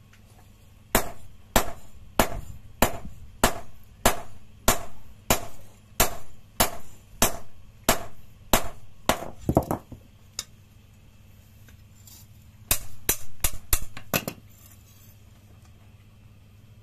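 Hand hammer striking a red-hot parang blade of leaf-spring steel on a steel anvil, each blow a sharp ringing clang. There are about sixteen evenly paced blows, roughly one and a half a second, then after a short pause a quicker run of about seven blows.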